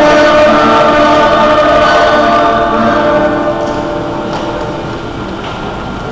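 A choir singing long held notes that fade out about three and a half seconds in, leaving only room noise.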